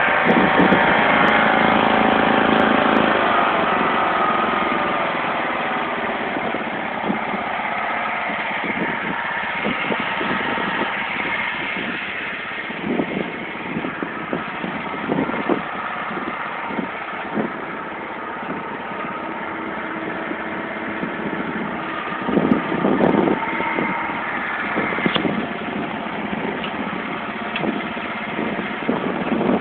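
John Deere LX176 lawn tractor's engine running as the tractor drives through snow and pushes it with its front blade. The engine is louder for the first few seconds, then runs steadily.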